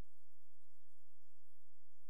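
A steady, unchanging low hum, with no crowd or game sound.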